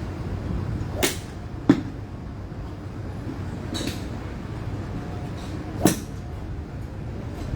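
Golf club heads striking golf balls: four separate sharp cracks over steady background noise, the second, about 1.7 seconds in, the loudest.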